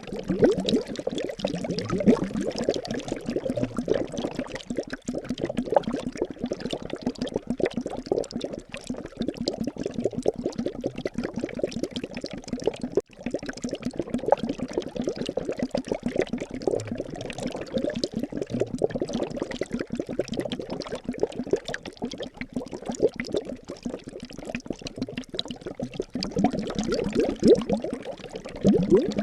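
Liquid bubbling steadily, a dense stream of small bubbles popping, with a momentary break about thirteen seconds in.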